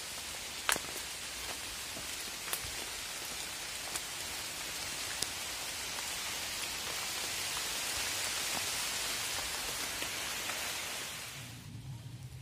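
Steady hiss like rain falling on leaves, with a few scattered sharp ticks. It grows slightly louder, then drops away abruptly near the end.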